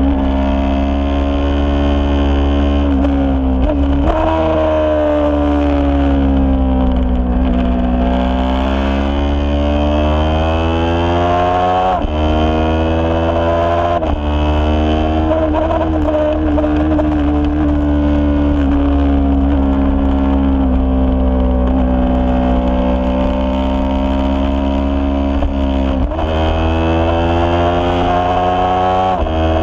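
Racing motorcycle engine at high revs, heard from on board, its pitch sinking and climbing over several seconds at a time, with a few abrupt breaks in pitch at gear changes.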